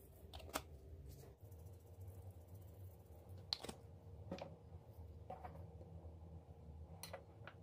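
About half a dozen faint, sharp clicks and taps of metal kitchen tongs and tableware being handled on a countertop, over a low steady hum.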